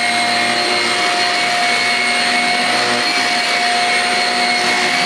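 Shark Rocket corded stick vacuum cleaner running over carpet with its motorised brush head, a loud steady whine with several high held tones.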